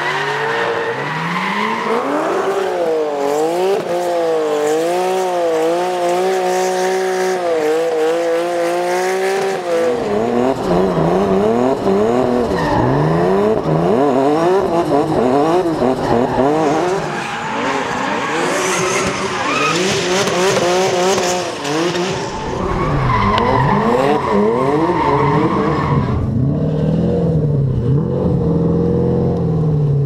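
BMW drift cars, an E36 with a turbocharged S54 straight-six and an E30 with a 4.6-litre V8, revving hard and bouncing up and down the rev range while drifting, with tyre squeal. Near the end the revving gives way to a steadier, lower engine note.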